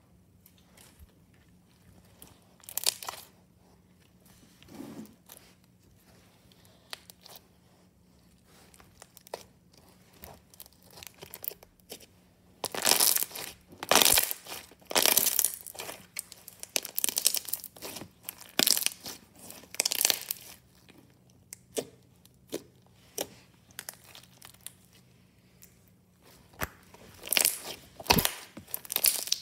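Glossy slime being kneaded and pressed by hand, giving irregular sticky crackles, clicks and pops. They are sparse at first, come in dense bursts from a little under halfway through, thin out again, and return near the end.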